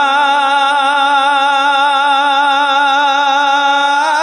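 A man singing an emotional Punjabi devotional kalam, holding one long note with a wavering vibrato, then breaking into quick ornamented turns near the end.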